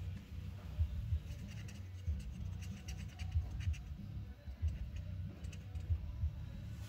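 Handling noise from a phone microphone pressed against skin: irregular low bumps and rubbing, with faint scratchy ticks.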